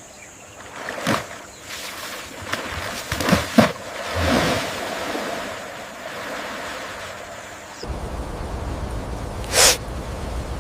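Zebra snorting: a few short, sharp snorts and a longer breathy one over outdoor background noise. Near the end this gives way to a steady low rumble with a single whoosh.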